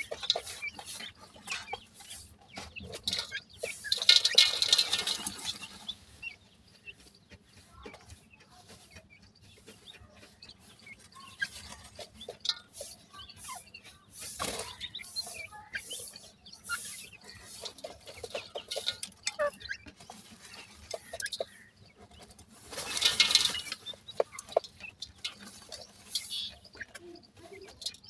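Grey francolins scratching and dust-bathing in dry, clumpy soil: scattered small ticks and rustles of dirt, with two louder rushes of flapping wings and spraying dirt, about four seconds in and again near the end.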